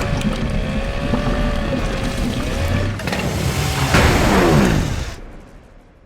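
Cartoon sound effects: a loud, rumbling noise with a wavering tone over it, then a steeply falling whistle-like glide about four seconds in, after which the sound dies away.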